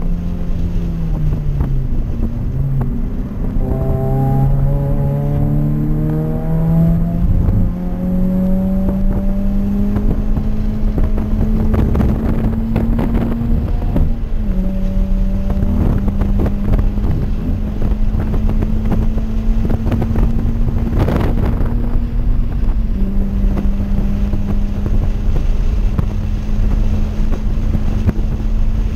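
Toyota 86's flat-four engine heard from inside the cabin on track: the revs dip, then climb steadily, drop at an upshift about halfway through, and hold steady under load, over a constant wash of road and wind noise. A brief sharp knock sounds about two-thirds of the way in.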